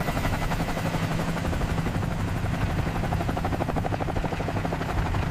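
Heavy-lift helicopter hovering with a slung load: its rotor blades beat in a rapid, steady chop over a constant engine hum.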